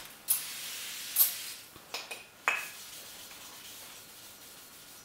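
Aerosol brake cleaner spraying in a hiss of about a second, with a short louder burst near its end, as it degreases the braking surface of a new brake rotor. A few light clicks and a clink follow, then faint rag wiping.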